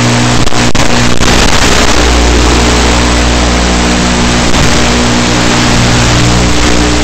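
Audio track of an FPV quadcopter's analog video feed: a loud, steady buzz over heavy hiss, with a few brief crackles about a second in.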